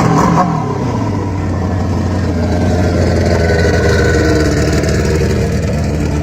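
Motorcycle engine running loudly at a fairly steady pitch, with a low, even drone and only slight changes in revs.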